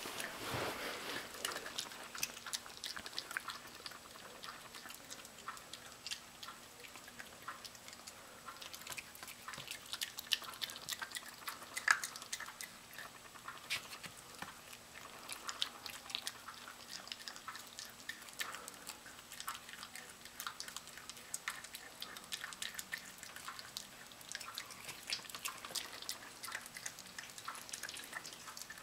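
Miniature Pinscher chewing and gnawing raw chicken, with irregular wet clicks and smacks of its teeth and jaws and one sharper crack about twelve seconds in.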